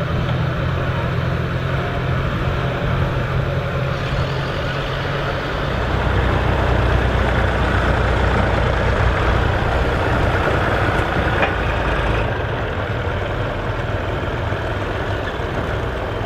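Vintage Massey Ferguson tractor engines running steadily under load while pulling field implements. The engine note changes about six seconds in and again near twelve seconds, and is louder in between.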